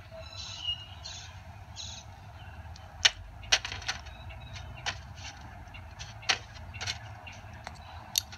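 A handful of sharp, irregular clicks over a steady low hum, with a few short hissy bursts in the first two seconds.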